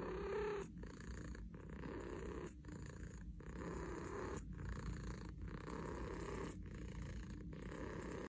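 Domestic cat purring steadily while its head is combed, a sign of contentment. The purr breaks briefly about once a second.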